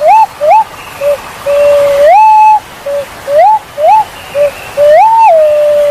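Punai walik jawa, a green pigeon, singing a whistled song. It gives a run of short rising whistles and two longer held notes, the second dropping to a lower held note, over a steady hiss.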